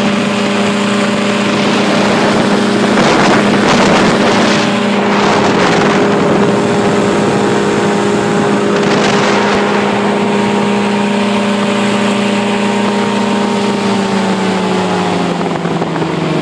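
Powered parachute's engine and propeller running steadily at cruise power, with wind buffeting the microphone a few times. About two seconds before the end, the engine note starts to fall as the throttle comes back for a no-power approach.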